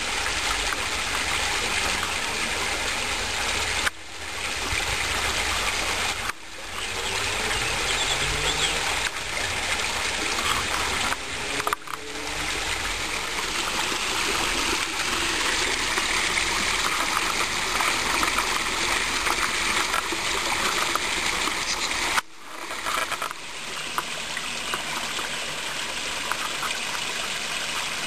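Water trickling and splashing down a small rockery waterfall into a garden pond, a steady rushing that briefly cuts out a few times.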